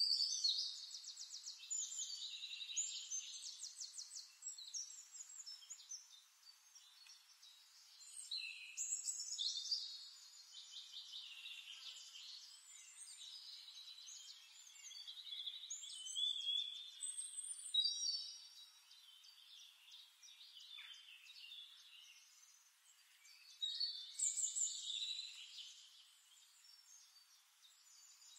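Birds singing: phrases of rapid high trills and whistling chirps, coming in several spells with quieter gaps between them.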